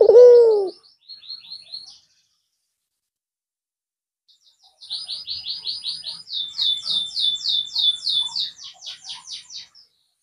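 The end of a white Barbary dove's low coo just after the start. Then, from about five seconds in, a small bird's rapid high chirping, about six notes a second, runs for some five seconds and fades out.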